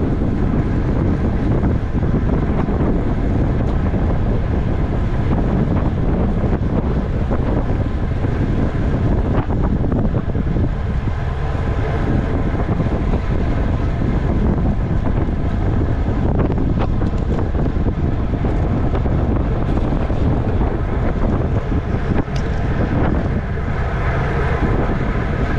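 Steady wind noise rushing over a racing cyclist's camera microphone at race speed.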